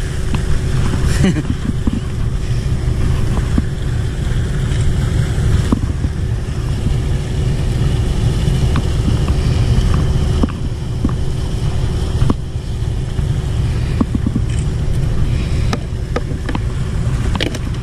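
Steady low engine rumble with a constant droning hum from heavy machinery running close by, with scattered light clicks and knocks of fishing gear being handled on the rocks.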